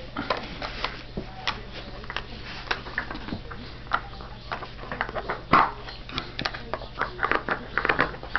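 A dog chewing on a plastic deodorant cap, making irregular sharp clicks and cracks of plastic under its teeth. The loudest crack comes about five and a half seconds in.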